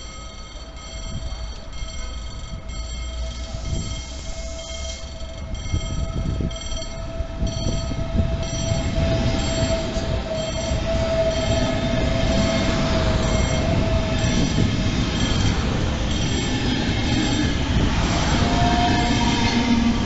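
CP Alfa Pendular tilting electric train running into the station and passing close by. The rumble of wheels and running gear grows louder over the first dozen seconds, then holds, with a steady whine that swells in the middle.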